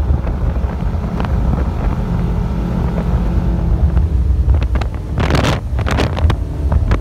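Motorboat engine running steadily with a low drone, under wind buffeting the microphone, with a few short bursts of hiss about five to six seconds in.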